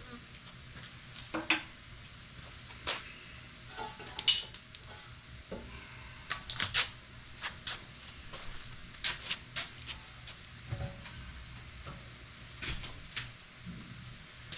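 Scattered metallic clinks and knocks of hand tools and loose engine parts being handled during a teardown, a few sharp ones at irregular intervals, over a faint steady low hum.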